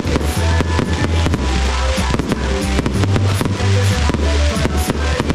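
Fireworks going off, a rapid run of bangs and crackles from gold comets and aerial bursts, over music with a steady bass line.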